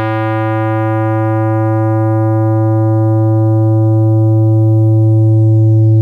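Computer-synthesized tone from a discrete summation formula, with a 110 Hz carrier and a 220 Hz modulation frequency giving upper and lower sidebands. A steady low buzzy pitch whose upper overtones die away one by one, leaving it mellowing toward a plain low hum as it grows slightly louder.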